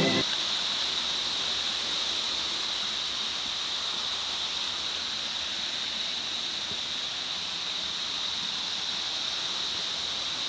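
Small mountain waterfall: a steady rush of falling water, an even hiss with no breaks.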